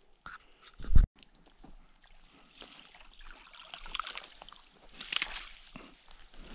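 A single thump about a second in, then water sloshing and trickling with scattered clicks and rustles as a mesh yabby trap is dragged and lifted out of shallow dam water.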